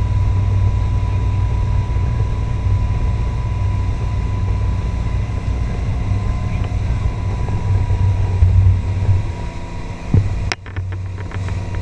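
Motorboat engine running steadily at speed while towing an inflatable tube, with the rush of the wake and wind behind it. About ten seconds in there is a sharp knock and the noise briefly drops.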